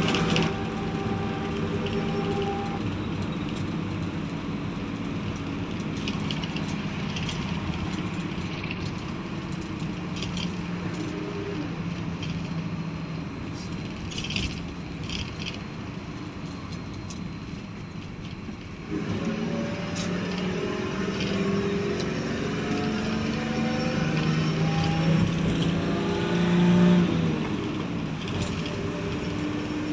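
Road traffic: car engines running and pulling away over a steady hum of traffic, with engine pitch rising as vehicles accelerate. The sound changes abruptly about two-thirds of the way through.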